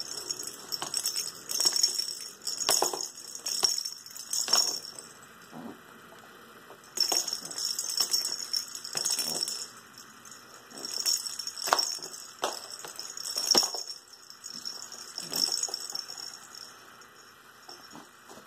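A baby shaking a plastic rattle ball in bursts of a second or two, with a few sharp knocks as it hits the plastic highchair tray.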